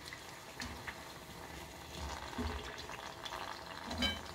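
Hot oil bubbling and sizzling quietly around two karchikai, stuffed sweet pastries, deep-frying in a kadai on low heat, with a few faint ticks.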